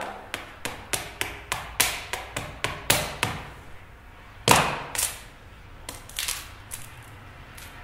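Sledgehammer head knocking on a cracked Sony Xperia Z smartphone lying on concrete: quick sharp knocks about three a second for the first three seconds, then one heavier knock about four and a half seconds in and a few fainter ones after.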